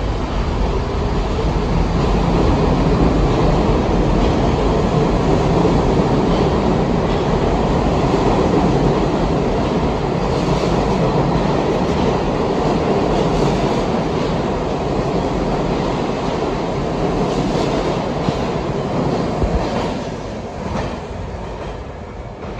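New York City Subway train running past the platform at speed: a loud, steady rumble with wheel clatter over the rails, fading in the last couple of seconds as it leaves.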